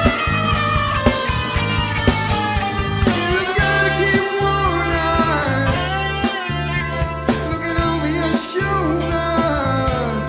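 Live rock band playing: a Fender electric guitar plays a lead line that slides and bends in pitch over bass and drums.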